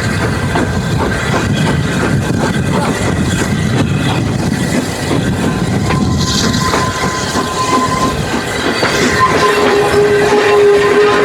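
Railway train running along the track: a steady rumble with wheels clicking over the rail joints. A thin steady whine comes in about six seconds in, and a lower one from about nine seconds on.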